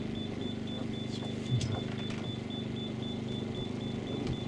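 A steady low machine hum with a faint, evenly pulsing high-pitched tone running through it, and a few faint clicks.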